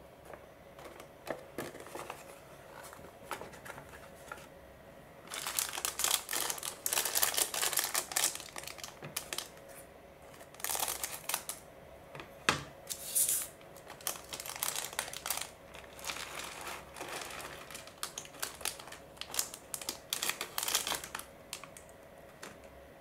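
A thin plastic bag of small Daiso Puzzle Block pieces crinkling as it is torn open and handled, with the little plastic pieces clicking as they are shaken out, after a few soft taps and rustles at first. The crinkling is densest about five to nine seconds in, then comes in repeated short bursts.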